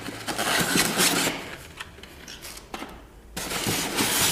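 Hands handling a cardboard box and its white foam packing insert: an irregular rustling and scraping of cardboard and foam rubbing. It thins out in the middle and picks up again about three and a half seconds in.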